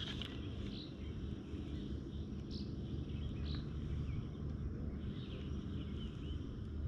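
Outdoor lake ambience: birds chirping now and then over a steady low rumble.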